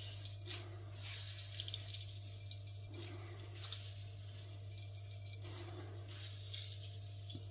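Juice trickling and dripping into a ceramic plate as grated vegetable is wrung out in a cloth by hand, faint.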